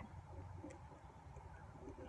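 Near silence: faint background ambience with a low hum and a single light click.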